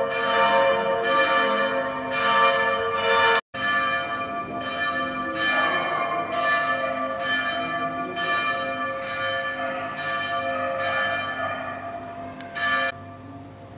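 Church bells ringing, with a new strike about once a second over a held wash of overlapping tones. The sound cuts out for a moment about three and a half seconds in, and the ringing dies away near the end.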